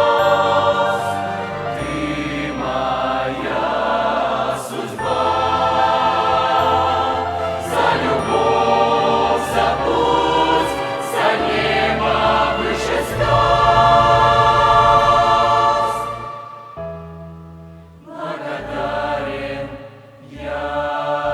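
Youth church choir singing a Christian worship song with instrumental accompaniment, swelling into a long held final chord that stops about sixteen seconds in; a few softer accompaniment chords follow to close.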